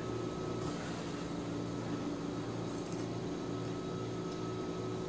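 A steady mechanical hum with a few fixed tones, like a running room appliance, with two short soft noises of noodles being slurped from chopsticks, about a second in and near the middle.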